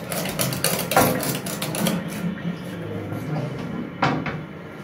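Rapid clicking and tapping as the parts of a toilet cistern's flush push-button mechanism are handled, with a sharper knock about a second in and another near the end.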